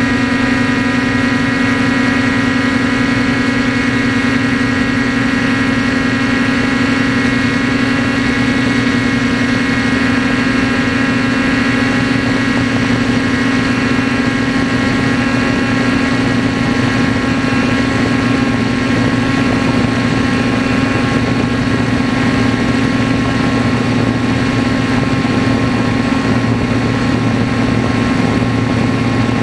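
DJI F450 quadcopter in flight, its four 2212 920 kV brushless motors and propellers giving a loud, steady, multi-tone hum.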